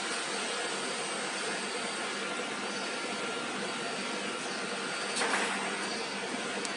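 Steady rushing machine noise of a wood CNC router's vacuum table pump running, with a brief louder swish about five seconds in.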